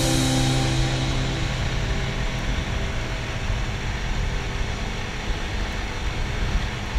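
Street-legal ATV riding along, its engine running under a steady rush of wind on the microphone. A held tone fades out over the first second and a half.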